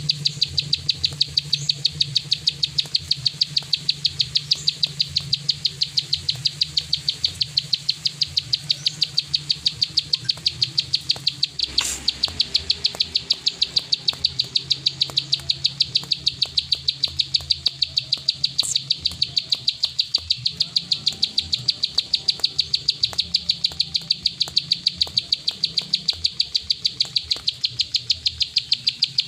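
Plain prinia (prenjak sawah) singing its 'klik' song: a long, unbroken run of fast, evenly spaced, high clicking notes.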